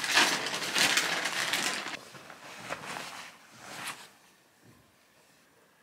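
Rustling and crinkling of things being handled and tidied, dense for the first two seconds, then a few shorter, softer rustles.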